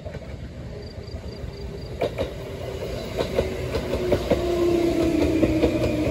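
A JR Kyushu 787 series electric express train approaches and runs past close by, growing louder. Its wheels click over the rail joints, and a humming tone slowly drops in pitch as it goes by.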